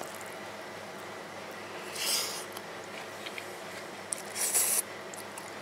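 A person slurping chow mein noodles off chopsticks, two short loud slurps about two seconds in and near the end, with faint clicks between, over a steady low hum.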